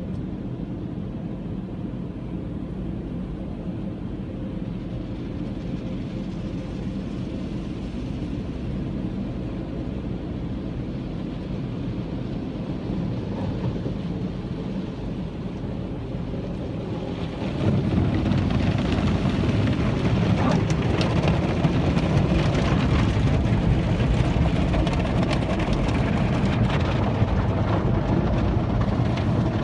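Automatic car wash heard from inside the car: a steady rumble of spraying water and machinery, then about 17 seconds in it turns suddenly louder and rougher as a heavier wash stage hits the car and thick soap foam covers the windshield.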